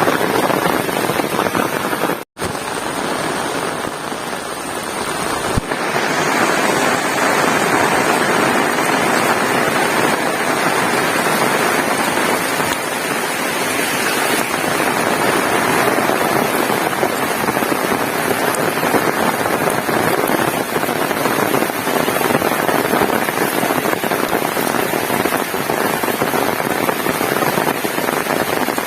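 Heavy rain pouring steadily, a dense even hiss, cutting out for an instant about two seconds in.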